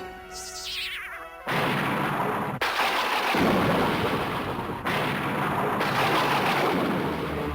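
Cartoon sound effect of a phone transmitter at work: a quick run of gliding tones, then loud rushing noise for about six seconds. The noise breaks off for an instant and resumes three times.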